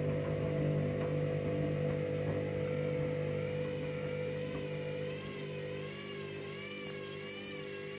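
Candy front-loading washing machine's drum turning wet laundry and water, the motor humming steadily. About halfway in, a motor whine starts to waver up and down in pitch as the machine works against an out-of-balance load.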